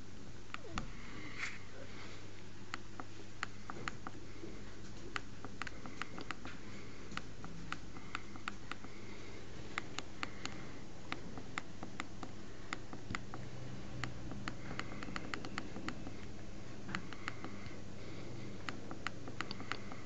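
HTC Desire's optical joystick button clicking under a fingertip, pressed over and over in uneven runs of sharp clicks, at times several a second; the button is defective and its presses do not work. A steady low hum runs underneath.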